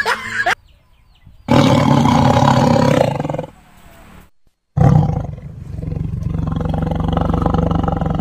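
Tiger roar sound effect played twice: a roar of nearly two seconds, then after a short gap a longer one of about four seconds, each cutting in and out abruptly.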